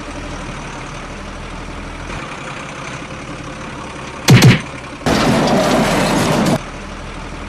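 Steady truck-engine idling, dubbed over the toy scene. About four seconds in come two loud thumps close together, then a loud rushing hiss lasting about a second and a half that cuts off suddenly.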